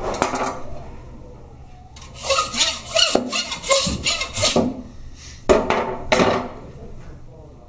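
Hand meat saw (bow-frame bone saw) cutting through lamb bone in a run of rough back-and-forth strokes, taking the foreshank off the carcass.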